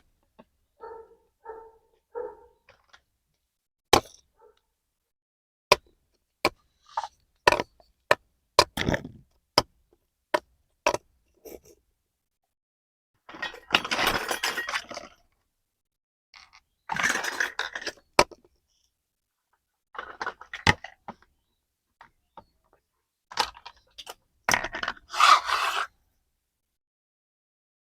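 Small plastic toy kitchen pieces handled: sharp clicks and clattering knocks, then several longer stretches of scraping and rustling.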